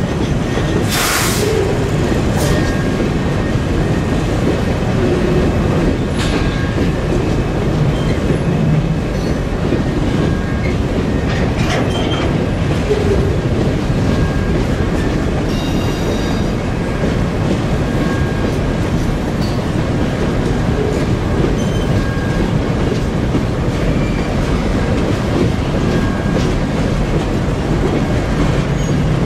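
Herzog ballast hopper cars of a freight train rolling past: a steady loud rumble of steel wheels on rail, with clicks over rail joints and brief high-pitched wheel squeals, the sharpest about a second in.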